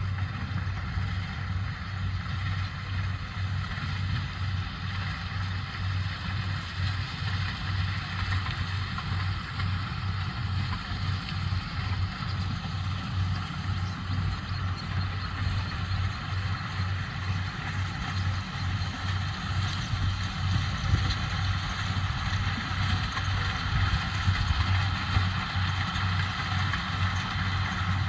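Corn harvesting machine running steadily: a low, evenly pulsing engine hum under a higher whirring noise from the machinery.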